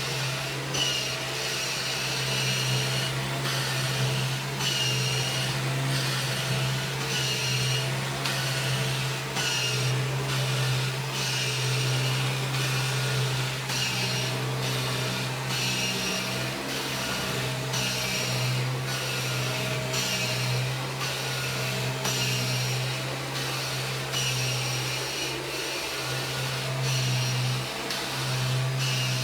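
A 1997 Kirby G5 upright vacuum cleaner is running steadily over carpet. Its motor drone stays constant, while a higher hiss swells and drops regularly about every second and a half as it is worked back and forth.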